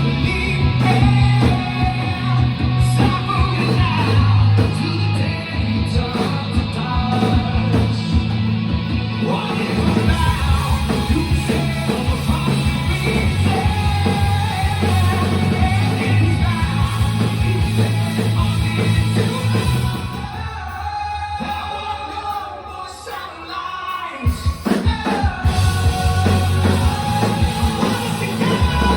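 Live rock band playing with a singer, recorded on a phone from the audience. About twenty seconds in the band drops back to a quieter passage, then the full band comes back in a few seconds later.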